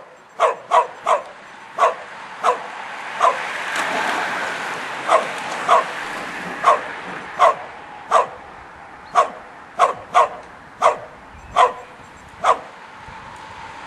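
A dog barking repeatedly: about eighteen short, sharp barks at uneven intervals of under a second.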